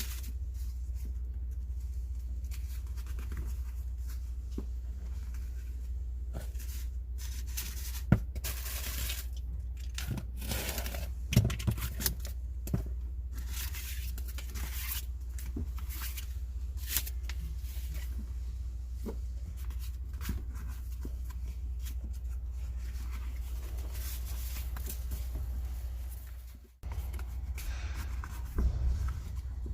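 Hands-on installation work: tearing, scraping and scattered clicks and knocks, with a few longer tearing stretches, over a steady low hum. The hum cuts out briefly a few seconds before the end.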